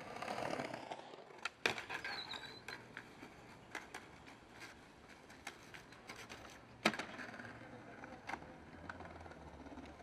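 Skateboard wheels rolling on concrete, with several sharp clacks of the board; the loudest clack comes about seven seconds in. Between them the board slides along a stone ledge.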